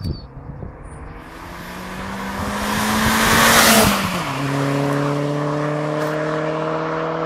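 Chipped Mk4 VW Golf GTI with a 1.8-litre turbocharged four-cylinder and 3-inch downpipe, 2.5-inch cat-back exhaust driving past at speed. The engine note climbs slightly in pitch and swells as it approaches, is loudest as it passes about four seconds in, then drops in pitch and holds a steady lower note as it pulls away.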